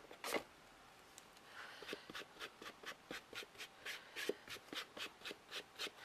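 A single sharp knock, then a quick run of short rubbing strokes, about four a second, as an ink applicator is scrubbed along the edge of a painted panel.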